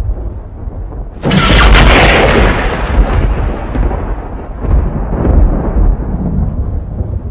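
A thunderclap breaking sharply about a second in, then rumbling on low and steady as it fades.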